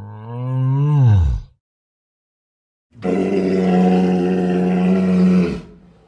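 Sound-effect calls of a Camarasaurus (sauropod dinosaur), two deep calls. The first rises in pitch and then drops away, ending about a second and a half in. After a short gap comes a longer call held on one steady pitch, which fades out near the end.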